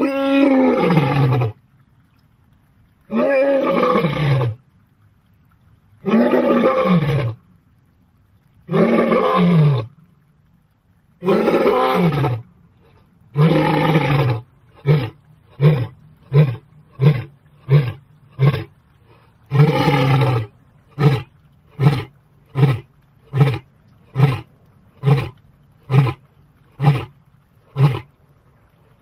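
Lion roaring: a series of long roars about three seconds apart, each falling in pitch, then a run of short grunting calls at nearly two a second, with one more long roar partway through them.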